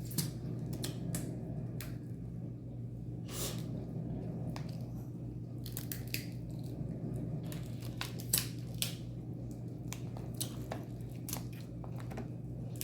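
Crab from a seafood boil being eaten close to the microphone: shells cracking and tearing, with chewing and wet smacking, as many sharp irregular snaps. A steady low hum sits underneath.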